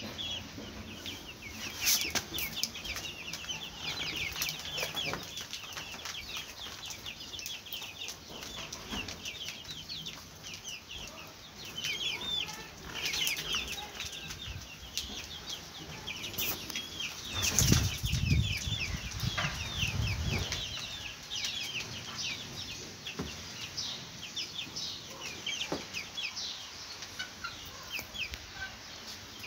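A flock of young black chickens peeping constantly, many short, high, falling peeps overlapping. About eighteen seconds in, a louder low rustling burst lasts a couple of seconds.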